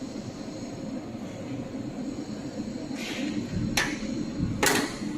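Steady hum of a jewelry laser welder running, with three short, sharp bursts of noise in the last two seconds, the last two the loudest.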